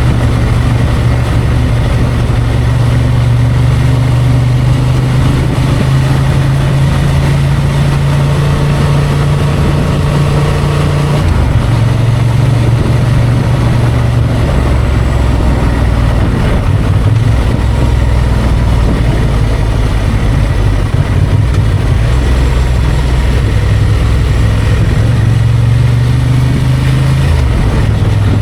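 Honda XL750 Transalp's parallel-twin engine running under way, its note holding steady for long stretches and shifting pitch about a third of the way in and again near the end, with wind and tyre noise.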